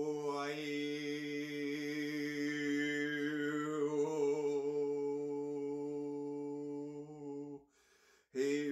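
A man chanting one long, steady held tone, his vowel shifting so that a high overtone glides up and later sinks back down. Near the end the tone stops for a breath and starts again.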